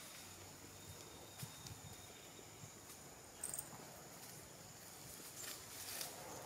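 Faint outdoor ambience: a steady high insect drone, with soft rustles of dry leaf litter as pigtail macaques shift about. A brief sharp click comes about three and a half seconds in.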